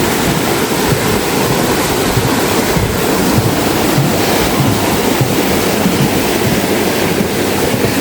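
Fast-flowing stream rushing steadily: a loud, even hiss of running water.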